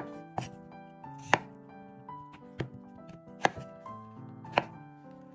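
A knife chopping on a cutting board, about six separate sharp strikes roughly a second apart, over background music of held notes.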